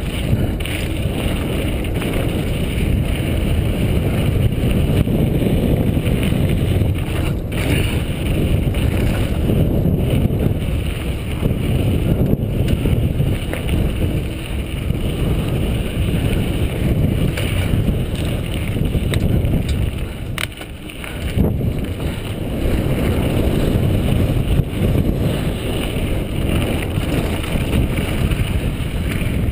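Wind buffeting a helmet-mounted GoPro's microphone, mixed with the rumble of a 2003 Intense Tracer mountain bike's tyres rolling over a dirt singletrack. A few sharp rattles cut through, and the noise eases briefly about two-thirds of the way through.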